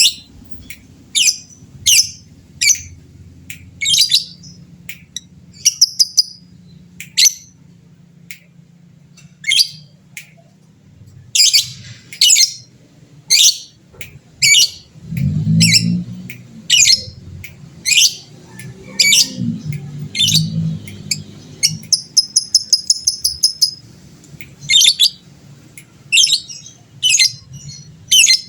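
Lovebird calling in short, shrill chirps about once or twice a second, breaking a little past the middle into a fast chattering run of repeated notes lasting about two seconds.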